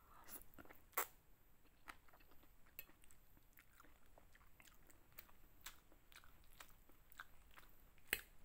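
Quiet, close-miked chewing of a mouthful of chicken noodles: soft wet mouth clicks and smacks, with a sharper click about a second in and another near the end.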